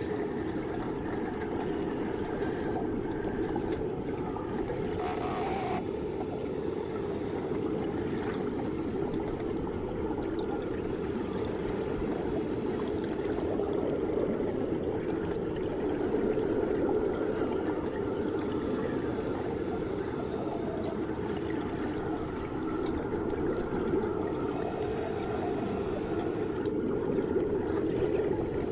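Muffled underwater ambience in a swimming pool, heard from beneath the surface: a steady, low rushing of water with no distinct events.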